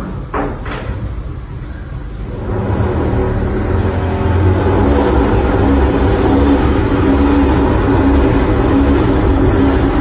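Antique pendulum wall clock chiming its quarter-hour tune. The ringing tones start about two and a half seconds in, overlap and keep sounding, after a couple of clicks near the start.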